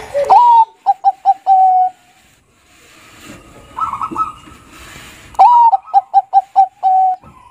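Bangkok-strain zebra dove (perkutut) singing: twice, a phrase of quick staccato coos that opens on a longer note and ends on a longer held coo.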